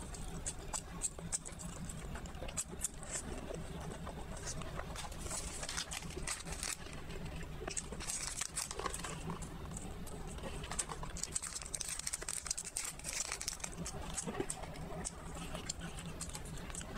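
Close-miked chewing and mouth sounds, with small clicks and rustles, then the crinkling of a small plastic candy sachet being handled and torn open.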